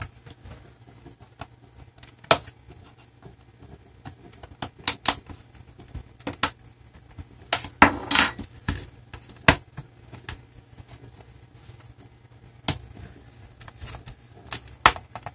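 Sharp plastic clicks and snaps as the underside panel of a Dynabook Satellite Pro C50-H-11B laptop is pried and unclipped around its edge with a thin pry tool and fingers. Scattered single clicks a second or two apart, with a longer scrape about eight seconds in.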